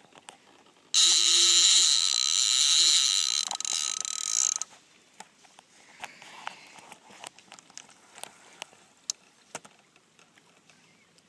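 Fishing reel drag buzzing as a hooked catfish runs and pulls line off the spool, a loud steady high-pitched zing lasting about three and a half seconds that cuts off suddenly; faint scattered ticks follow.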